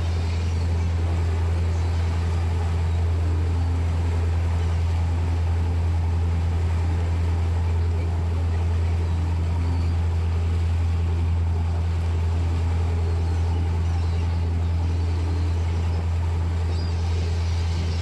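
Tour boat's engine running steadily at cruising speed, a deep even drone with a low hum, over the rush of the churned wake water.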